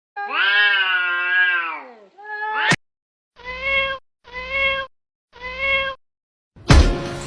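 Domestic cat meowing: one long drawn-out meow that drops in pitch at its end, a short meow, then three short meows about a second apart.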